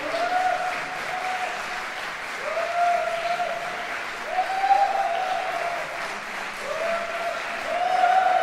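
Audience applauding steadily, with long shouts from listeners rising over the clapping every couple of seconds.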